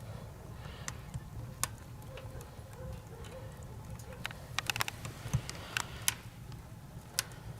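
Firewood burning in a camping tent stove, crackling with irregular sharp pops and clicks, a few in quick clusters, over a low steady hum.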